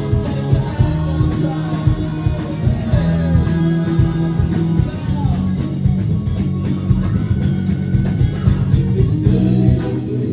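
Live rock band playing: electric guitar, bass guitar and a male lead vocal over a steady beat, heard loud through the venue's PA.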